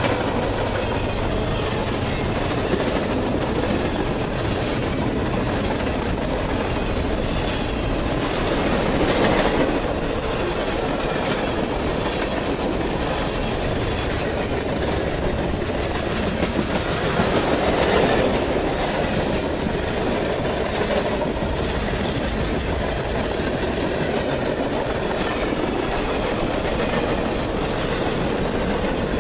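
Freight cars of a long CSX train rolling past at speed: a steady rumble and clatter of steel wheels on the rails, swelling briefly twice, about a third and two thirds of the way in.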